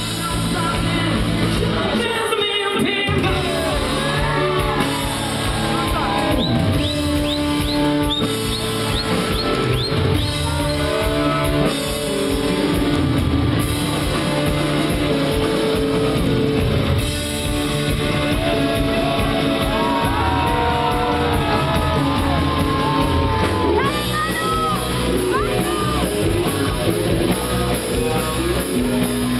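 Rock band playing live, the music loud and continuous, with bending melodic lines over a steady low end.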